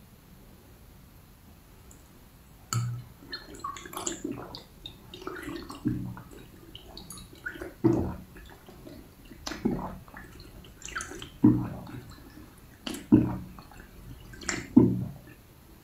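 A person drinking from a glass: wet sipping and gulping swallows of liquid, starting a few seconds in and coming again roughly every one and a half to two seconds.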